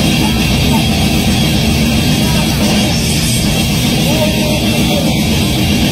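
Heavy metal band playing live: two electric guitars, bass and drums, loud and steady.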